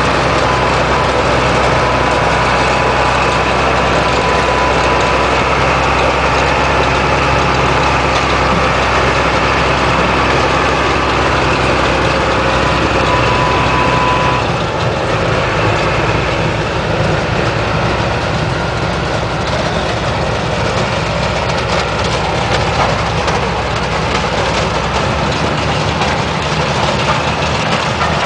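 Heavy farm machinery engine running steadily, with a thin high whine over it. About halfway through the whine stops and the engine note drops a little lower and quieter.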